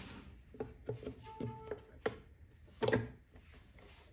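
The clutch cover of a 2005 Yamaha R1 engine being handled and set back against the crankcase, giving about five light knocks and clicks, the loudest about three seconds in.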